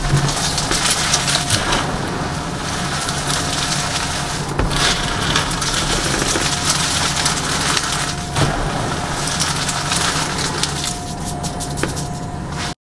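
Bare hands crushing and crumbling small reformed gym chalk pieces into loose chalk powder: dense, crunchy crackling with occasional sharper snaps. It cuts off abruptly near the end.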